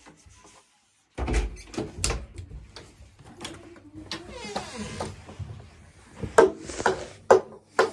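Handling noise from the recording phone as it is moved and set down on the carpet: a burst of knocks and low thumps about a second in, then rubbing, and a few sharp knocks near the end.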